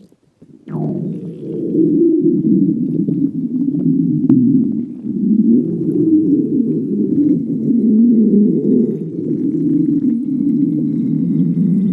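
A human stomach growling: a long, continuous low gurgling rumble that wavers up and down in pitch, starting just under a second in.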